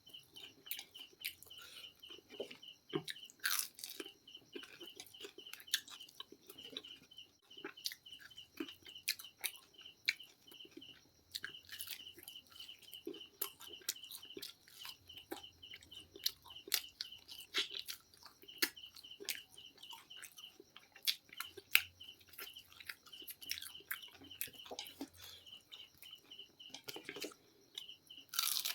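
Close chewing and crunching of fried chicken, with many irregular sharp bites and mouth clicks. A high, fast, evenly repeated chirping runs in the background in stretches of several seconds.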